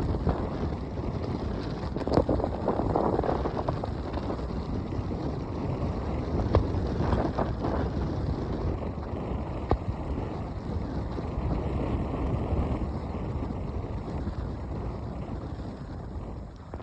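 Wind buffeting the microphone as a skier moves downhill, a steady rush with a few sharp clicks.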